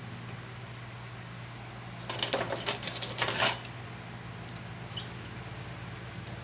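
Small metal tools or parts clinking and rattling on a hard work surface for about a second and a half, followed by a single faint click, over a steady low hum.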